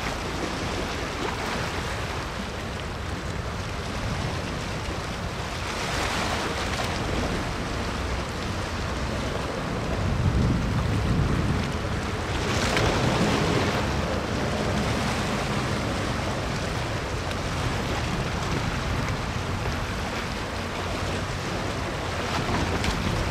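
Wind blowing on the microphone over the steady wash of water at the waterfront, swelling in a few gusts.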